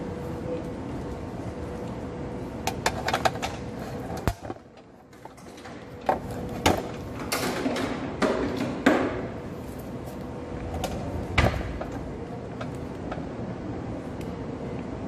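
Scattered knocks and clacks, a few in quick clusters, the loudest about eleven seconds in, over a steady background hum with a faint constant tone.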